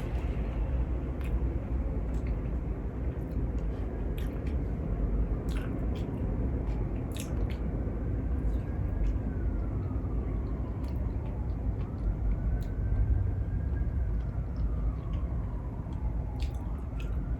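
Close-up chewing and biting of seafood, with scattered wet clicks and smacks over a steady low rumble. In the second half a faint distant siren rises and falls.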